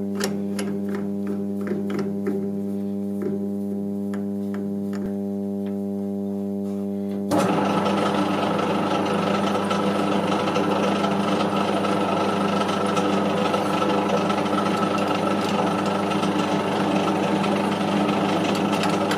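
Metal lathe running with a steady hum, a few light clicks near the start. About seven seconds in, a louder, rougher cutting noise suddenly joins in as a centre drill in the tailstock drill chuck cuts into the spinning steel workpiece.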